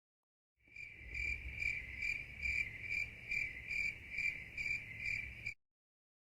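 Insect-like high chirping, one steady pitch pulsing about twice a second. It starts sharply about half a second in and cuts off abruptly about a second before the end, with dead silence on either side, like an edited-in sound effect.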